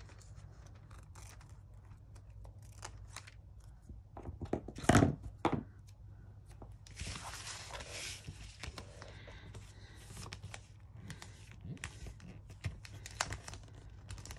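Paper being handled on a cutting mat: sheets of patterned paper are slid and smoothed down by hand, with a rustle of paper around seven to eight seconds in. There is a single knock about five seconds in and small taps and clicks throughout.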